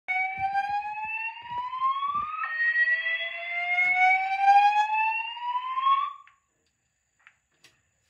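Wheelock speaker strobe sounding an EST voice-evacuation alarm tone: two slow rising whoop sweeps, the second longer than the first, cutting off about six seconds in.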